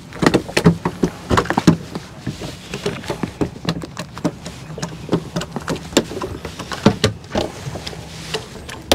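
Irregular knocks, taps and rattles of handling on a small fishing boat, thickest in the first couple of seconds, over a steady low hum.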